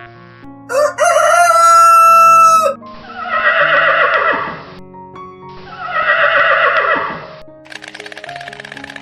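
A rooster crowing: one long held crow about a second in, then two shorter calls that fall away at the end, over background music.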